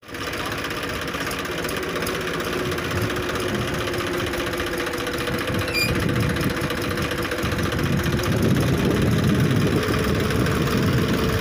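Massey Ferguson 1035 DI tractor's three-cylinder diesel engine running. About six seconds in it grows louder and its note rises as it takes load pulling a loaded trolley out of a sandy rut.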